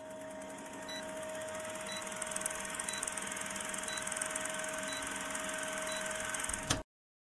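Old film projector sound effect: a fast, even mechanical clatter with a faint steady hum, growing slightly louder, with a short tick about once a second, cutting off suddenly near the end.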